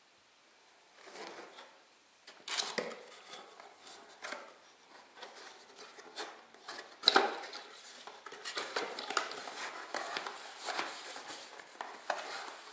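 Cardboard packaging being handled: a white box and its inner flaps rustling, sliding and tapping, in an irregular run of scrapes and clicks that starts about a second in, with one sharper knock about seven seconds in.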